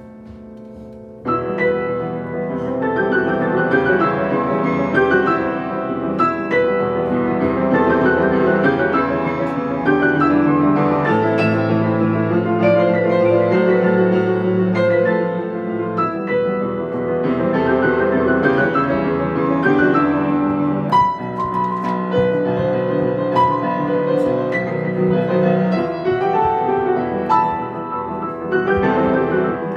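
Piano played by a young student: a quick piece with many notes. The first second is a brief lull, and the playing resumes about a second in.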